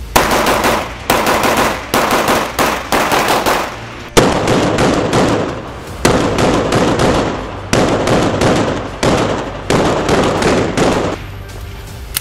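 A Beretta 92F-type 9 mm pistol fired rapidly, about fifteen shots in quick strings with short pauses. Each shot echoes in an indoor range.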